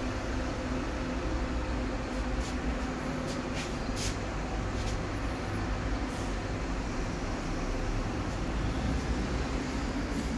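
Steady street traffic rumble with a low engine hum, and a few short clicks over it.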